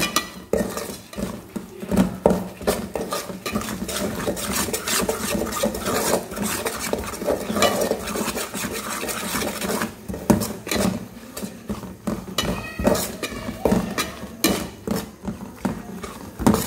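Steel spoon stirring a thick chilli-and-turmeric masala in a metal pan, scraping and clinking against the pan's bottom and sides in quick, irregular strokes.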